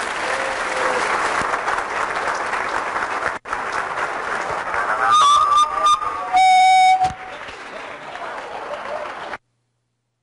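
Audience applauding. Short pitched toots sound about five seconds in, then one loud held horn-like tone at about six and a half seconds. The sound cuts off suddenly near the end.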